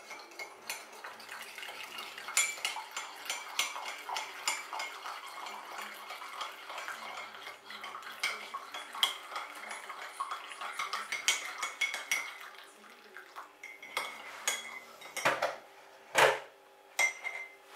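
A metal teaspoon stirring in a mug, clinking against the sides over and over. It thins out later on, and there are two louder knocks near the end.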